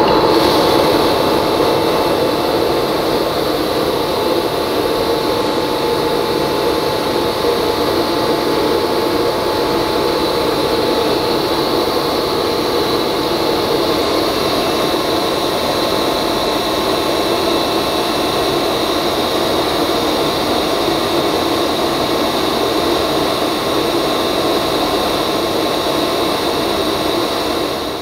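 Wieland FS-216 industrial wet-dry vacuum cleaner running steadily with a faint whine, its vacuum pump putting the drum under pressure so that the coolant is pushed back out through the return hose and pours into the machine's coolant tank.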